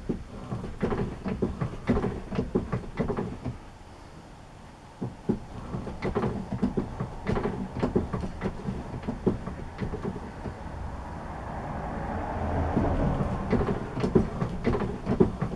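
Metal lathe running through light finishing cuts, advancing about 2 thou at a time, with an irregular clatter of clicks and knocks. It drops quieter about four seconds in, and a noisier stretch swells around twelve seconds in.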